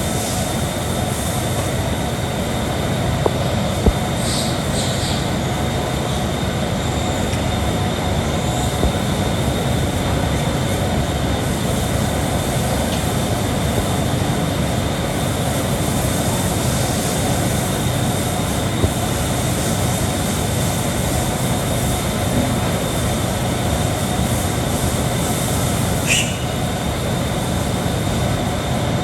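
A steady, loud mechanical rumble with hiss, with a few brief high squeaks over it about four seconds in and again near the end.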